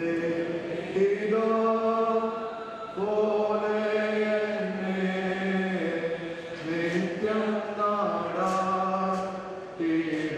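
A hymn chanted slowly: long held sung notes, each lasting a second or two, stepping from one pitch to the next.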